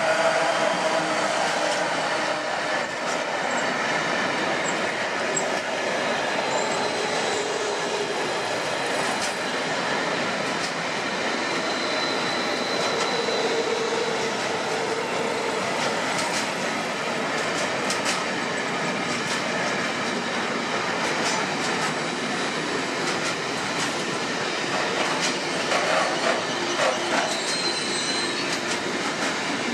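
DB Class 185 electric locomotive passing close, then a long intermodal freight train's container and tank wagons rolling steadily by, with wheel clatter over rail joints and brief high wheel squeals.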